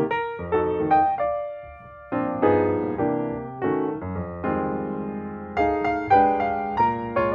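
Background piano music: struck chords and melody notes, each starting sharply and fading before the next.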